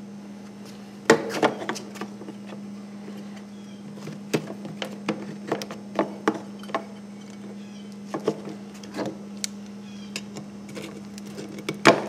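Scattered clicks and light knocks of hands and needle-nose pliers working a latch cable loose on a plastic outboard cowling, over a steady low hum.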